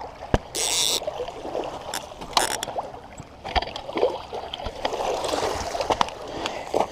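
Water sloshing and splashing close by, with scattered clicks and knocks of handling and a brief hissing splash about a second in.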